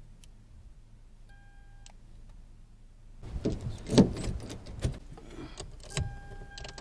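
Sharp clicks and knocks of keys and car parts being handled, the loudest about four seconds in. A steady electronic beep tone sounds briefly early on and again near the end.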